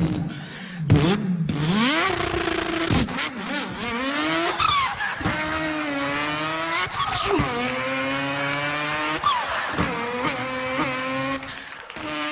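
A man's voice imitating a racing car's engine, revving up through the gears: the pitch climbs and drops back several times as if shifting, with a few short cracks between the shifts.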